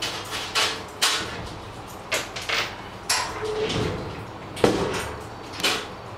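Iron tattoo-trolley shelves and frame clanking and knocking as they are handled and set down during assembly: a scatter of separate metal knocks, the loudest about two-thirds of the way through.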